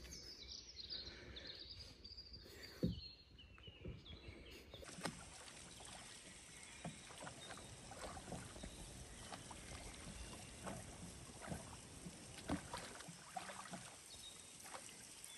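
Faint oar strokes of a small rowboat being rowed: scattered light splashes and knocks of the oars, with one louder knock about three seconds in.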